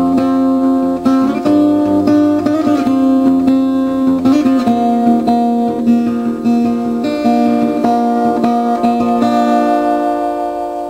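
Acoustic guitar music, strummed and plucked notes changing every second or so, fading out near the end.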